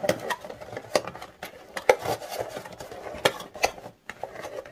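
Cardboard packaging of a tablet box being handled: the white paperboard insert and paper envelope are tapped, slid and shuffled, giving a string of light knocks and clicks over soft rustling.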